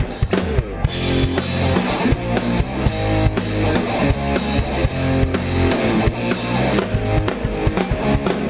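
Loud rock-style backing music with a driving drum kit beat and bass.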